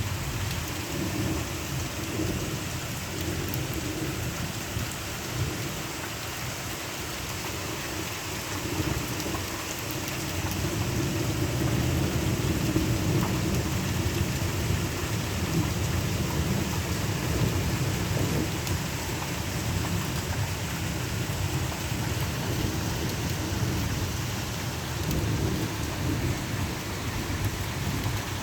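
Steady rain falling, an even hiss, under a deep low rumble of thunder that swells for several seconds in the middle and then eases.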